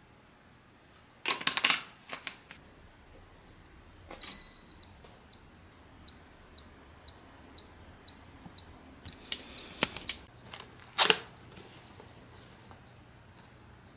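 Kitchen handling noises: a quick clatter of knocks early on, then a short electronic beep from an appliance about four seconds in, followed by a steady faint ticking about twice a second, typical of a timer counting down. Another louder knock comes about eleven seconds in.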